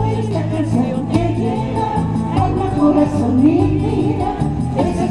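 Live music: a woman singing into a microphone, accompanied by acoustic guitars.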